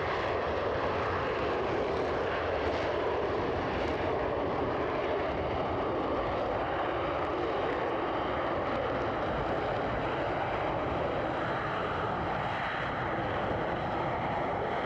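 Jet engines of two fighter jets at takeoff power during a takeoff roll: a steady, even jet noise that holds at one level.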